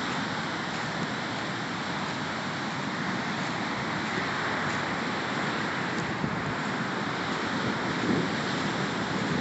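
Steady rush of sea surf breaking on the beach, mixed with wind, with no distinct individual events.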